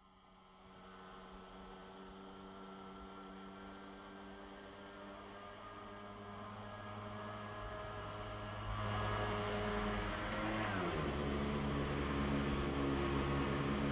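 Low sustained drone in a film soundtrack, fading in from near silence and swelling steadily in loudness. A hiss builds in with it about nine seconds in, and the drone drops in pitch about eleven seconds in.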